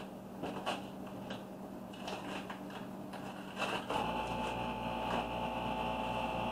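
Masking tape and vinyl stencil being peeled and crumpled off an airbrushed tumbler: soft rustles, crinkles and light ticks. About four seconds in, a steady hum starts and keeps going.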